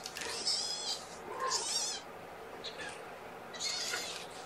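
A very young kitten mewing: three high-pitched, wavering cries.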